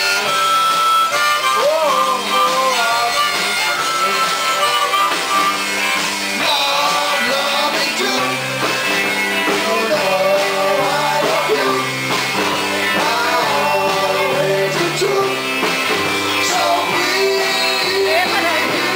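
Live rock band playing a blues-rock number, with a harmonica carrying the lead in bending, sustained lines over electric guitar and bass.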